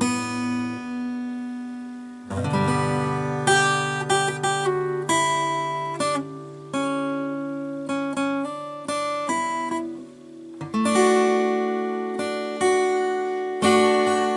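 Guitar being played slowly: chords and single notes plucked and strummed at an uneven pace, each left to ring and fade, with short gaps about two seconds in and again around ten seconds.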